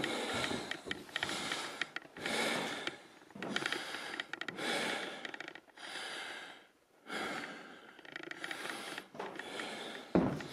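A person breathing heavily close to the microphone, breaths following each other about once a second.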